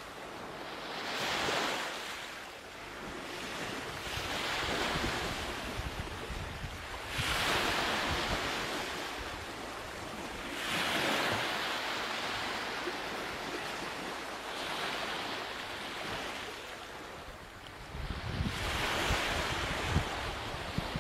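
Ocean surf: waves washing in as rolling swells of hiss every three or four seconds, with low rumbling gusts near the end.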